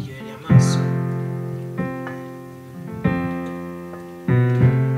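Background piano music: slow chords, a new one struck about every second and a quarter, each ringing and fading away.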